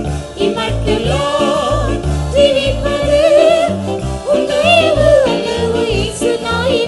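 Christian worship song: a voice singing a gliding melody over an instrumental accompaniment with a steady, repeating bass line.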